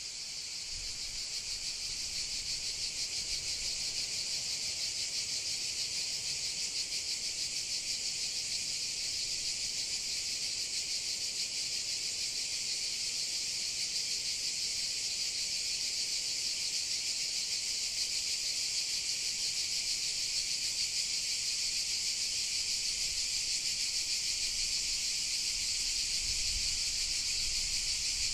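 Cicadas buzzing in a dense, steady chorus with a fast pulsing. It grows louder over the first few seconds, then holds.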